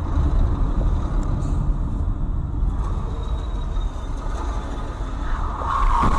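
Steady low rumble of a car's engine and tyres on the road, heard from inside the cabin through a dash cam. A higher-pitched noise builds in the last second.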